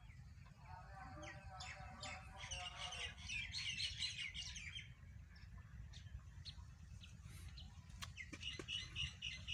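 Small birds chirping in rapid, dense runs, busiest in the first half and again briefly near the end, over a steady low rumble.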